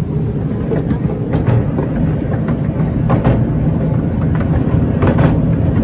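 Narrow-gauge miniature steam train running along the track, heard from on board a carriage: a steady low rumble with irregular clicks from the wheels and rails.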